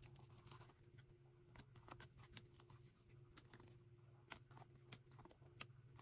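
Faint, scattered light taps of glossy photocards being handled and set down on a table, over a quiet steady low hum of room tone.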